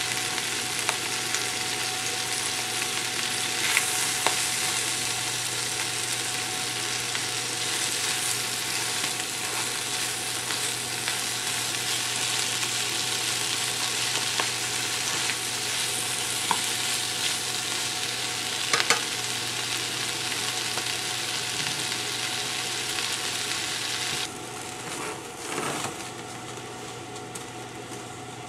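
Chopped spinach and scallops sizzling as they stir-fry in a frying pan, with chopsticks stirring and a few sharp clicks. Near the end the sizzle drops abruptly and turns muffled once a glass lid covers the pan.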